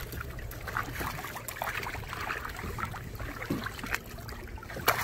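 Water sloshing and trickling against the side of a boat as a giant trevally is held in the water for release, with small splashes and a sharper slap near the end, over a low steady rumble.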